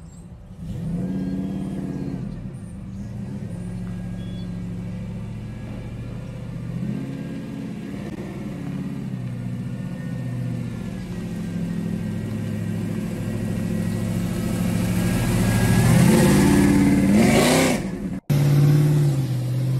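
Loud exhaust of a Chevrolet Caprice donk, revving up and down as the car pulls away and drives off. It is loudest about three-quarters of the way through, cuts off abruptly near the end, and a different engine note follows.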